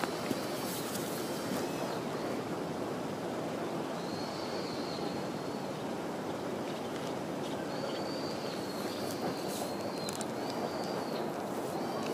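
Steady outdoor background noise, with a bird calling in short, high, arching notes, once about four seconds in and then several times in a row near the end.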